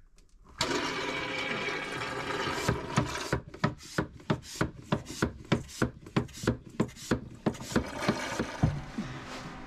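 Pump drawing oily bilge sludge and air up a suction hose: a steady sucking noise starts about half a second in, then turns into regular pumping pulses about twice a second.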